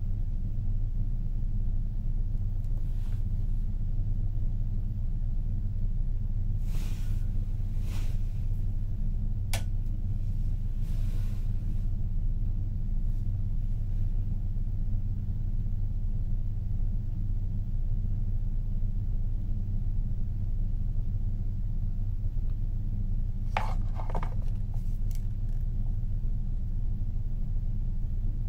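Steady low drone of a ferry's engines and hull vibration heard inside a passenger cabin. A few faint brief rustles and a click break in about a quarter of the way through and again near the end.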